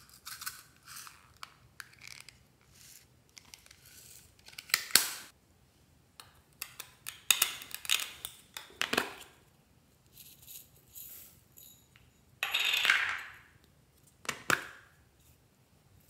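Small plastic containers of slime toppings handled by hand: scattered clicks and taps of the plastic and lids, with short rattles and rustles of the beads and sprinkles inside. The longest rattle comes about three-quarters of the way in.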